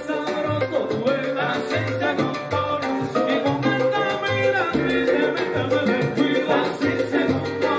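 Live salsa band playing, with a regular pulsing bass line and maracas shaken over the ensemble.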